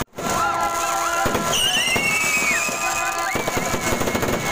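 Fireworks display: dense crackling bursts with several long whistling shells, some whistles gliding down in pitch. The sound drops out for a split second at the very start.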